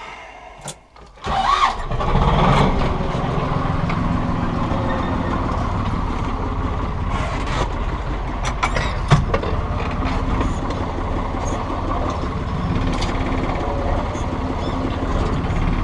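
Tractor engine starting about a second and a half in, then running steadily.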